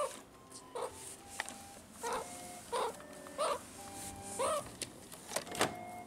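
Meerkat giving about seven short, arched chirping calls, one every half second to a second, with a few light clicks between them, over faint background music.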